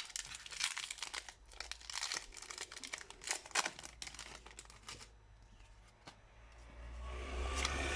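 Foil wrapper of a Pokémon card booster pack crinkling and being torn open, with rapid crackles for about five seconds, then a quieter pause before the rustling picks up again near the end.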